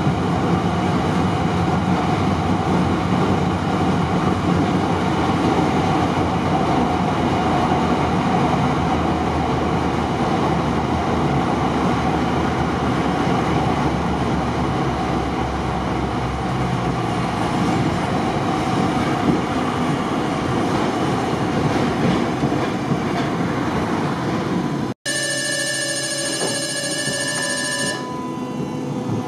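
Ex-Hannover Düwag TW6000 electric tram running along street track, with a steady rumble from wheels and running gear and a faint steady motor hum. About 25 seconds in the sound cuts off abruptly, and a high-pitched ringing signal follows for about three seconds before the quieter running resumes.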